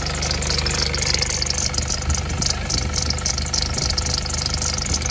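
Nissan Navara's engine idling steadily, its drive belt and fan spinning, heard close over the open engine bay.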